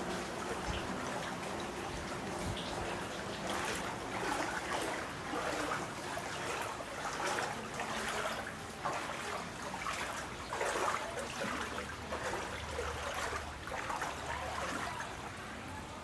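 Footsteps wading through floodwater, with a splash and slosh at each step, roughly one a second, over a steady trickle of running water.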